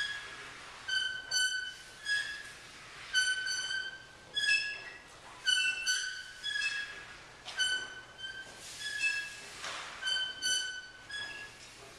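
A string of short, high, squeaky pitched notes, about fifteen in all, each under half a second, sounding singly or in quick pairs and hopping between two or three close pitches with a few brief slides. A faint hiss swells briefly near the end.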